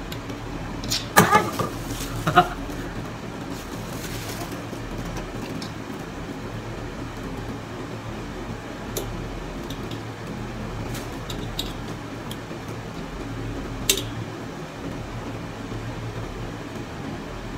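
Clicks and knocks of a metal scissor-arm microphone stand and shock mount being handled and fitted together: two sharp ones a second or two in, another later, and a few faint ticks between. Under them runs a steady mechanical hum like a fan or air conditioner.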